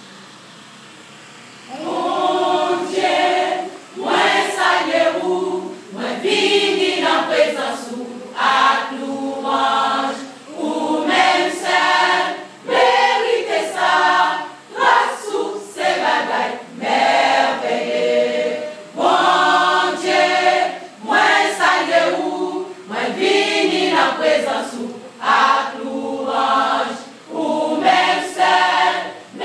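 Church choir of women's voices singing in short phrases with brief breaths between them, starting about two seconds in after a low room hum.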